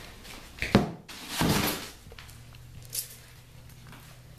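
A sharp knock, then a brief rustling scrape and a light click, over a faint low hum.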